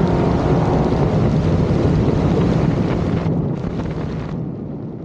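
Wind rushing over the microphone of a camera mounted on a moving Dodge Demon 170, over the low rumble of the car, growing steadily quieter as it fades out.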